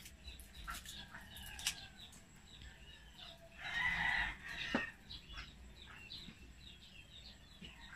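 Chickens clucking, with many short chirping calls throughout and one louder, longer call about four seconds in.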